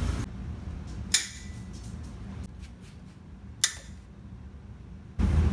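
Two sharp metallic clinks about two and a half seconds apart, each with a brief ring, and a few faint ticks between them: hand tools on the cylinder head bolts of a Harley-Davidson Shovelhead engine as they are loosened.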